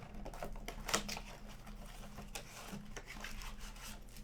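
Trading card blaster boxes and packs being handled: cardboard and foil rustling and scraping, with a run of light clicks and taps and a sharper tap about a second in.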